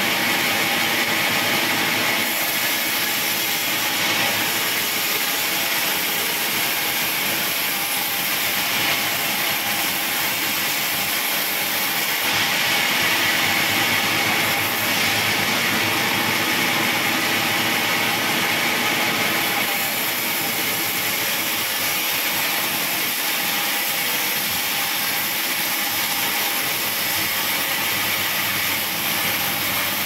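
Sawmill band saw running steadily, the blade whirring and hissing as logs are fed through it on the carriage, with slight swells in loudness as the cut goes on.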